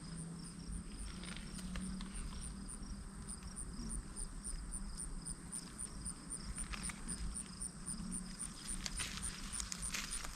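Crickets chirping in a steady rhythm of about four high chirps a second, with a few light footsteps or rustles near the end.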